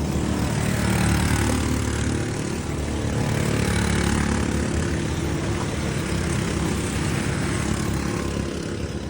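A vehicle's engine running steadily, a low drone under a continuous rushing hiss.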